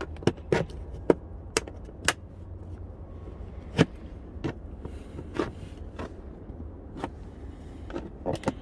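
Orange plastic trim pry tool working at the plastic interior kick panel by a 2019 Honda Pilot's driver door sill: a scatter of sharp plastic clicks and taps, about a dozen, irregular, the loudest about a second in and near four seconds in, as the panel is levered but not yet freed.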